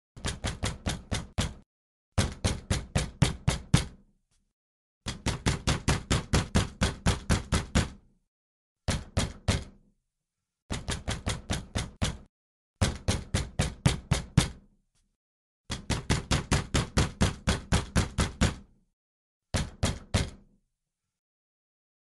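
Pounding on a wooden door: eight bursts of rapid blows, about four to five a second, separated by short pauses.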